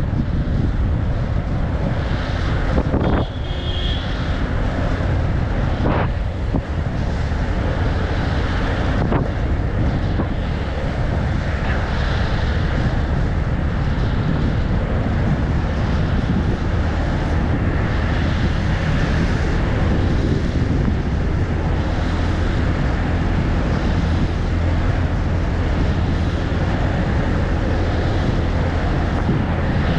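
Wind buffeting the microphone of a fast-moving inline speed skater, over the steady rolling of skate wheels on asphalt, with a few brief knocks.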